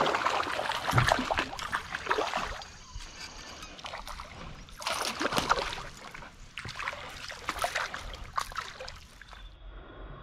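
A hooked smallmouth bass thrashing and splashing at the water's surface beside a kayak, in several bursts of splashing.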